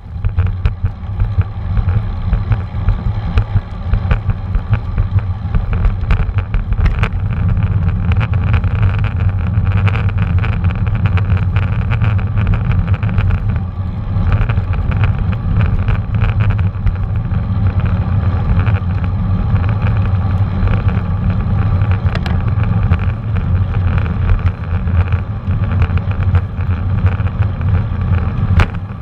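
Wind buffeting a GoPro camera's microphone, mixed with tyre and road noise, while a bicycle rides along. The result is a steady deep rumble whose loudness keeps fluttering.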